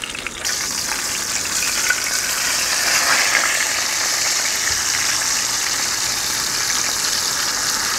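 Cornstarch-dusted sand sole shallow-frying in hot oil in a pan, a steady loud sizzle as the fish is flipped. The sizzle starts abruptly about half a second in.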